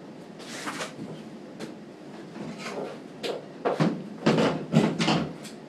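Irregular knocks and scrapes of things being handled: a few soft ones, then a louder cluster about four to five seconds in. There is no steady motor sound.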